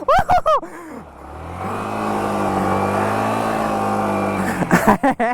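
Yamaha MT-15's single-cylinder engine revving up about a second in and holding steady high revs for about three and a half seconds, with a voice calling out at the start and again near the end.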